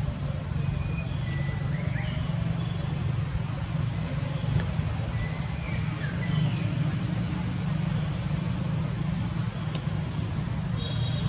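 Outdoor ambience: a steady low rumble under a continuous high insect drone, with a few short bird chirps scattered through.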